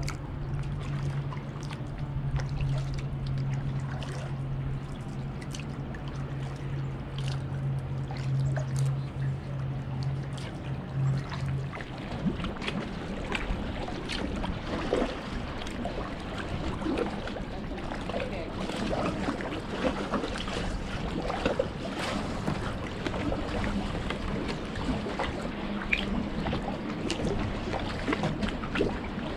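Kayak paddle strokes with dripping and trickling water and small splashes. A steady low hum in the first twelve seconds or so stops partway through.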